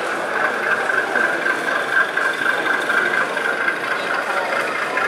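Sound-fitted model diesel locomotive playing a steady diesel engine running sound through its small onboard speaker as it moves slowly along the layout.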